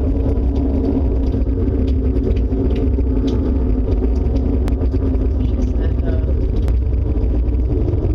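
A steady low drone of several held tones over a deep rumble, the unexplained 'strange sky sound' of the viral recordings, with a few short clicks.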